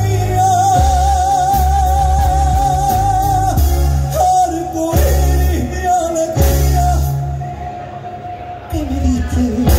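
A male singer performs a copla with a live band of drums, guitar and keyboard. He holds one long note with a steady vibrato, then the band punctuates with three sharp accented hits, about a second and a half apart. The music drops back near the end under a falling sung phrase.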